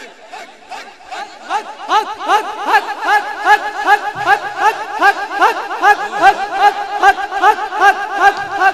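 A crowd of men chanting in unison, one short call repeated about three times a second in a steady rhythm. It swells to full strength about a second and a half in.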